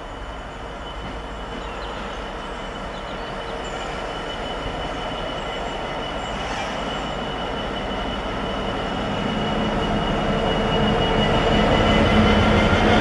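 Freightliner Class 66 diesel-electric locomotive, with its two-stroke V12 diesel engine, approaching at the head of a freight train and growing steadily louder as it draws alongside. A steady high whine sits over the engine note, and its pitch bends upward near the end.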